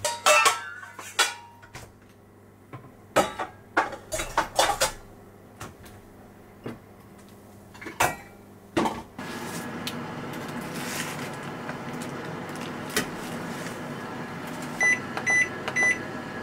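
Knocks and clinks of kitchenware being handled on a counter, then a microwave oven range starts running with a steady hum about nine seconds in. Near the end come three short electronic beeps as its buttons are pressed to set it for 250 °C.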